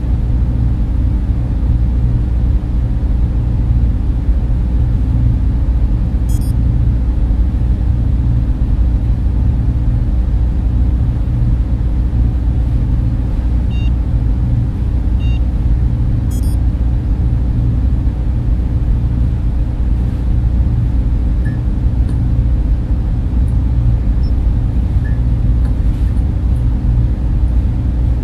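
Steady low rumbling hum of a synthetic sci-fi ambience drone, with a few faint, short high-pitched electronic blips scattered through it.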